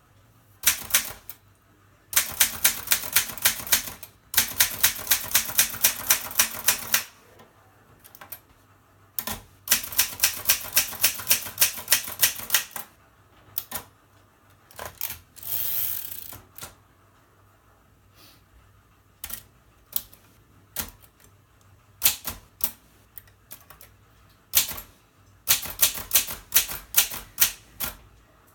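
Mercedes K45 portable manual typewriter being typed on: runs of quick key strikes at about five a second, broken by pauses and single strikes, with a short rushing noise about midway.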